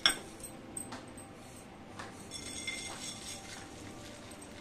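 A stainless-steel kadai clinks sharply once at the start, then gives a few light taps and a faint ringing as dry-roasted whole spices, dried red chillies and coriander seeds, are tipped out of it onto a ceramic plate.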